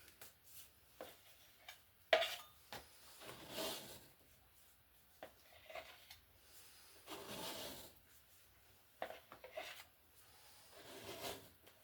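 Faint handling noises: scattered taps and clicks with a few short rubbing or scraping sounds.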